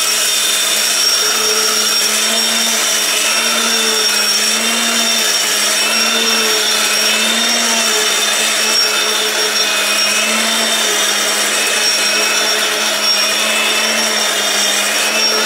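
Electric mixer grinder's motor running steadily at high speed, its blades milling whole wheat grains into flour.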